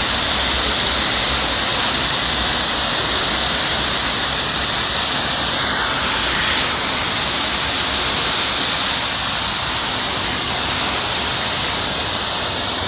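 Muddy floodwater pouring over a low ledge and rushing on as a fast current: a steady, loud rush of water.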